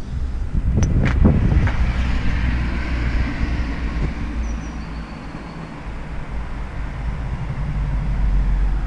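Wind rumbling on a handheld action camera's microphone, with a few knocks from the camera being handled about a second in.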